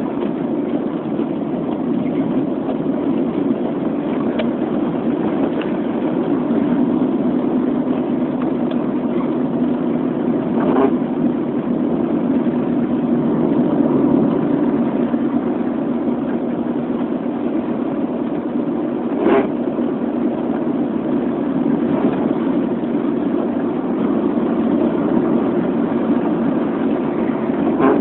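Steady engine and road noise of a moving car, heard from inside the cabin, with a faint constant hum. A brief knock comes twice, about a third of the way in and again past the middle.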